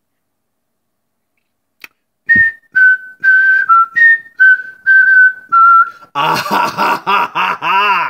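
A person whistling a short tune of about eight clear, steady notes in a repeating high-to-low pattern, followed near the end by a loud voice whose pitch rises and falls.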